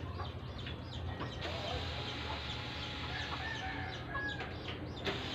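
Chickens clucking in the background, a few short faint calls over steady ambient noise, with some faint clicks near the end.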